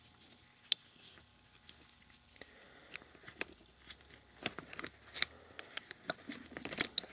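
.30-06 cartridges and a metal stripper clip being handled: irregular sharp clicks and light scraping of metal on metal, with the loudest clicks near the end.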